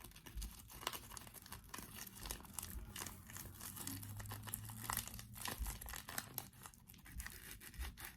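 Plastic packet crinkling and rustling in irregular small crackles as it is handled.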